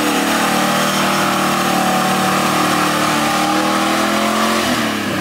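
Land Rover Discovery 1's 3.9-litre V8 held at high revs while its mud tyres spin and throw mud, struggling for grip on a muddy climb; the revs drop near the end.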